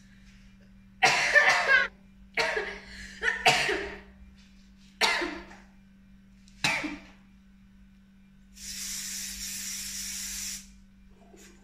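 A person coughing in a string of short, sharp bursts, then a can of cooking-oil spray hissing steadily for about two seconds near the end.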